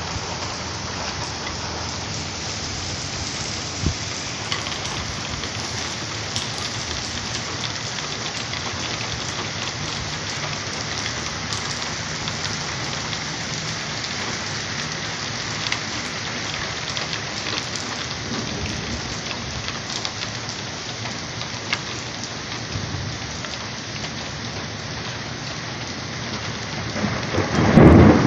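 Steady rain falling during a thunderstorm, with a few sharp drip clicks. About a second before the end, a loud rumble of thunder builds up.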